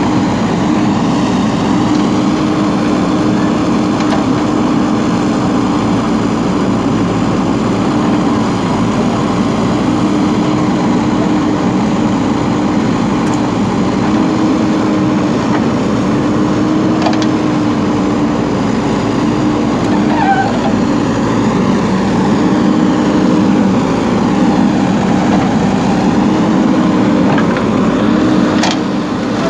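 Diesel engine of a JCB backhoe loader running steadily as it cuts soil, its note rising and dipping slightly.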